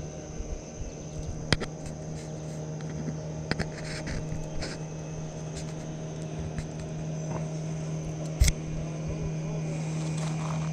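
Handling noise from a small sunfish and its lure held close to the camera: a few sharp clicks and knocks, the loudest about eight seconds in, over a steady low hum and a steady high-pitched drone.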